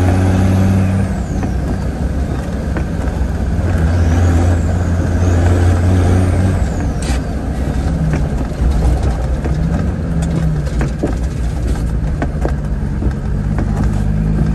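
Land Rover Defender TD5's five-cylinder turbo-diesel running under way with no bonnet and a straight-pipe exhaust exiting through the engine bay. The engine note rises and falls with throttle, with a faint high turbo whistle rising and falling a few times.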